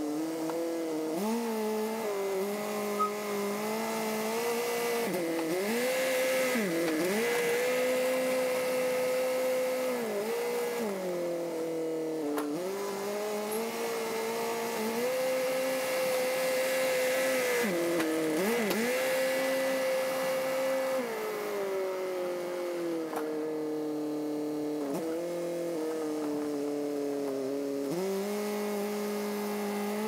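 Small crawler bulldozer's engine running under load while it pushes dirt with its blade. The pitch holds steady for stretches, then dips sharply and recovers several times.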